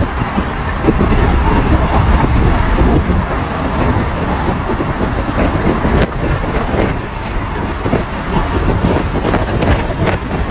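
A car driving at speed on a highway: steady road and engine noise heard from inside the cabin.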